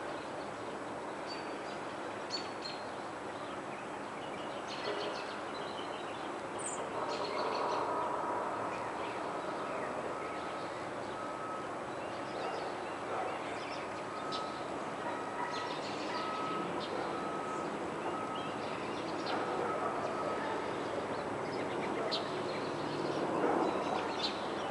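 Woodland ambience: scattered short bird chirps over a steady background rush, with a faint run of repeated short notes through the middle.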